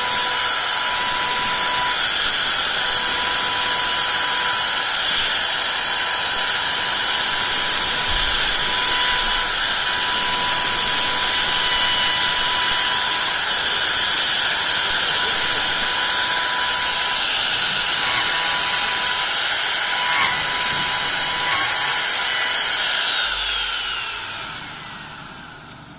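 High-speed rotary carving tool with a burr cutting into wood, a steady high-pitched whine. Near the end it winds down, its pitch falling and the sound fading out.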